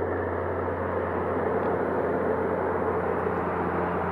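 Twin-turboprop Beechcraft King Air running on the runway: a steady engine drone with a constant low hum and a mid-pitched tone, unchanging in level.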